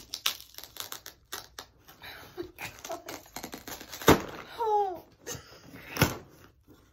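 Packing tape being picked at and peeled off a cardboard box: quick scratching and clicking of fingernails on tape and cardboard, with two loud sharp rips or snaps about four and six seconds in. A short falling giggle follows the first one.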